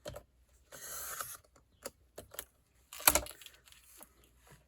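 Paper and a paper cutter being handled: a short scraping rustle about a second in, scattered small clicks, and one sharp knock about three seconds in.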